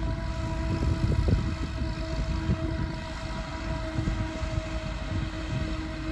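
Self-propelled forage harvester chopping maize, heard from a distance as a steady droning whine, with wind buffeting the microphone.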